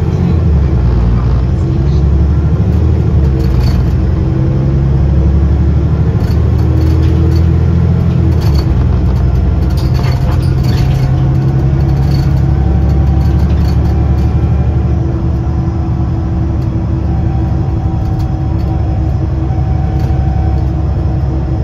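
Diesel engine of a VDL DB300 double-decker bus heard from inside the passenger saloon, running under load with a loud low drone. Its pitch steps down about eight seconds in, and the drone eases near fifteen seconds. The engine is running in good condition.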